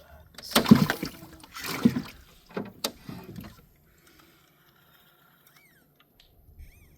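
Fishing gear being handled for a cast: two loud whooshing rustles about a second apart, a sharp click, then softer rustling. After that it is quiet except for two short chirps near the end.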